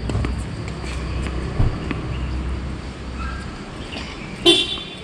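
Outdoor ambience with a steady low rumble that fades near the end. A dull thump comes about a second and a half in, and a sharp knock, the loudest sound, comes near the end.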